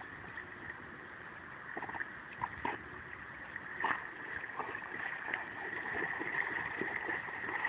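Dog swimming through shallow lake water, with splashing and lapping that grow louder as it nears, and a few short splashes in the middle.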